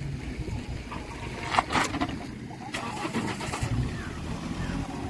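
Mahindra Scorpio's diesel engine running at low revs as the SUV creeps down a sandy dirt ledge, with two short bursts of hiss about a second and a half and three seconds in.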